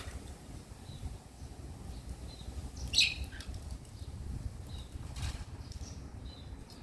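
Cockatiels making a few short, faint chirps, with one sharper, louder burst of sound, a chirp or a wing flutter, about three seconds in, over a steady low rumble.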